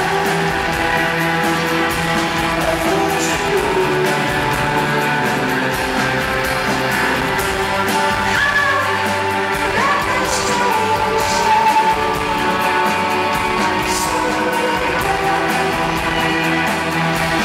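A live rock band playing loud: electric guitars and a drum kit with recurring cymbal crashes, with a voice singing over them, heard from the audience.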